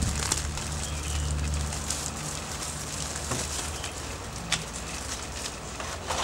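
Food being handled on a wooden cutting board: a crackling plastic bag of greens, and one sharp tap of a kitchen knife on the board about four and a half seconds in, over a low steady hum that fades after about two seconds.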